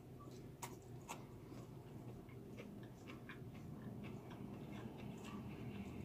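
Faint eating sounds: chewing a mouthful of rice and vegetables, with many small scattered clicks and a wooden spoon stirring food in a glass bowl. Two sharper clicks come about half a second and a second in.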